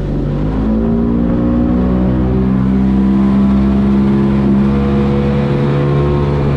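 Outboard motor pushing a small aluminium boat, throttled up: its engine note climbs in pitch over the first two to three seconds, then holds steady as the boat runs at speed.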